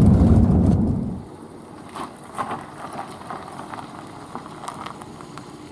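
Low road and engine rumble of a moving car, heard from inside the cabin, cutting off abruptly about a second in. After it comes a much quieter steady hiss with faint scattered crackles.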